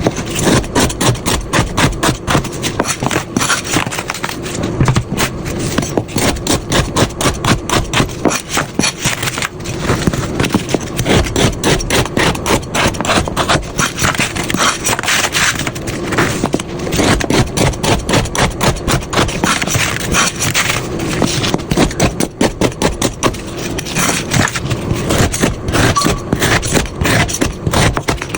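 A knife rapidly slicing through a block of jelly onto a cutting board, cut after cut, several strokes a second without pause.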